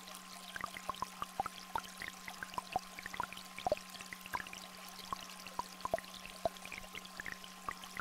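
Two steady electronic tones, one low and one higher, held unchanging over a small stream flowing and raindrops falling, the drops plinking irregularly several times a second.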